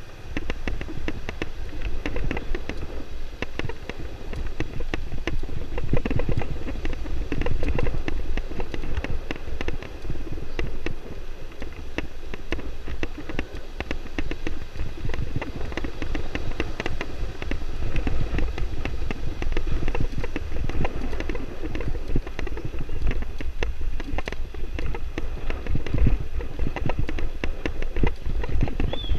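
Bicycle rolling over a rough dirt road: tyre rumble and a continuous rattle of the frame and handlebars, with wind buffeting the bike-mounted camera's microphone.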